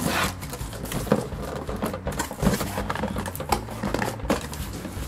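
Cardboard shipping box being opened by hand: flaps pulled back and the cardboard rustling, with irregular taps and scrapes.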